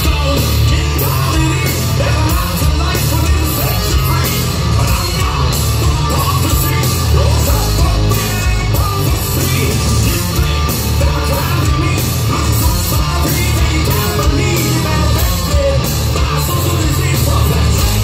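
A hard rock band playing loud and live through a big PA: distorted electric guitars, heavy bass and drums, with a male singer singing over them, heard from the crowd.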